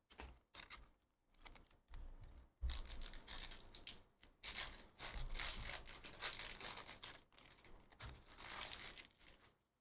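Trading-card pack wrappers crinkling and tearing as packs are ripped open and handled. The crackling comes in irregular spurts, sparse at first and busier from a few seconds in.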